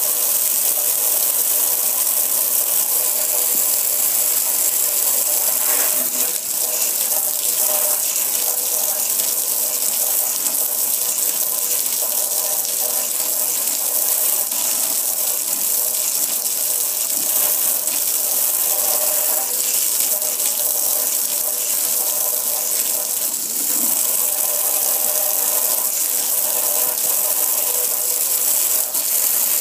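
Steady jet of water from a hose spraying onto a metal gas grill, hissing and spattering on the grill and splashing as it pours off onto the concrete below.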